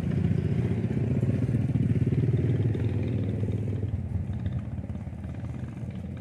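A small engine running steadily with a fast, even pulsing, louder for about the first four seconds and then quieter.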